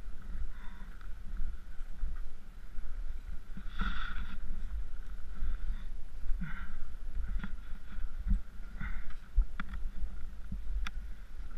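Skis carving through deep powder snow, making a soft swishing that swells now and then, over a low rumble of wind buffeting the microphone. A few sharp clicks come in the second half.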